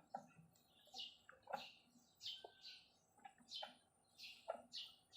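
A bird chirping repeatedly in short, high, falling chirps, faint.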